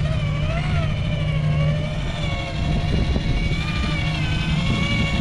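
Electric motor and geared drivetrain of a Traxxas TRX-4 RC crawler whining as it crawls through loose sand, the pitch rising and falling with the throttle over a low, rough rumble.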